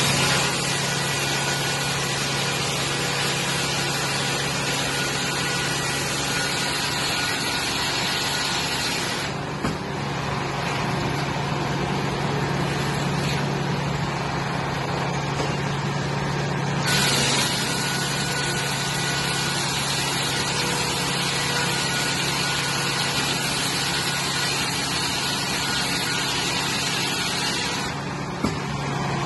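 Circular sawmill running, its large blade sawing featheredge siding boards from a log on the carriage, over a steady low hum. The high hiss of the cut eases off about nine seconds in, returns around seventeen seconds, and eases again near the end.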